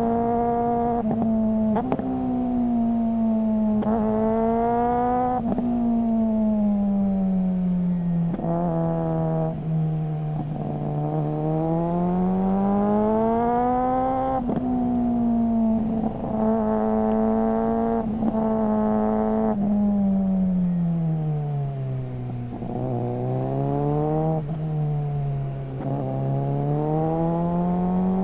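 Suzuki GSR600's inline-four engine through a GPR Ghost aftermarket exhaust, pulling up through the revs and easing off again several times. The note has sudden breaks and pitch drops where gears change, with a quickshifter being tested.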